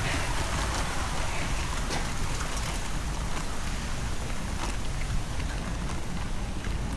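Steady splashing hiss of falling water from a park fountain.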